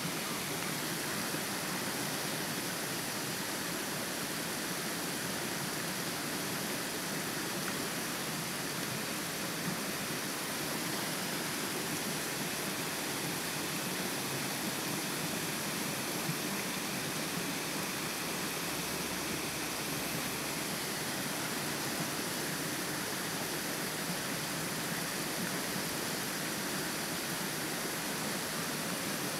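Steady, even hiss that holds the same throughout, with no distinct calls or knocks.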